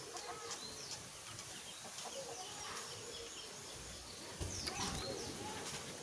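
Javan grey-throated white-eye (opior Jawa) giving short, scattered high chirps and whistles, with a louder run of quick downward-sweeping notes about four and a half seconds in.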